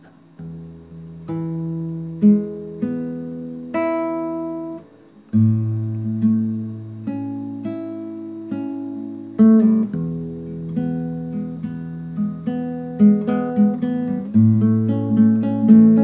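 Classical acoustic guitar played solo: plucked arpeggiated chords over ringing bass notes, starting about half a second in, with the picking growing busier in the last few seconds.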